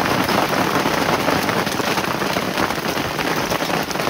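Hail and rain falling hard on a tarpaulin and bare ground, a dense steady patter of countless small hits.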